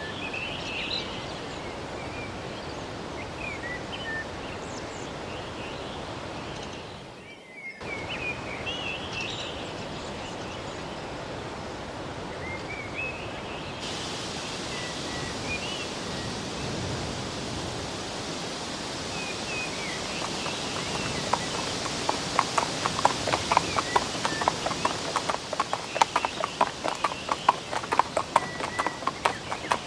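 Outdoor ambience with short high bird-like chirps over a steady hiss. From about two-thirds of the way in, a pony's hooves clip-clop in an even trot, about four beats a second.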